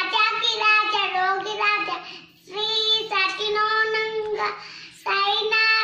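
A child singing a devotional song to Sai Baba without accompaniment, in three phrases of long held notes with short breaths between them.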